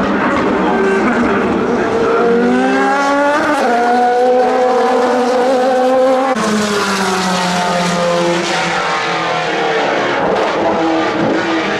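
Race car engines running at speed, the pitch rising as they accelerate, then dropping sharply about six seconds in as a car goes past.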